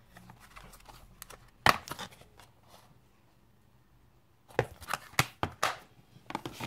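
Hard plastic CD cases that hold clear stamps clacking and knocking as they are handled and set down. There is one sharp clack about a second and a half in, then a quick cluster of clicks and knocks in the last two seconds.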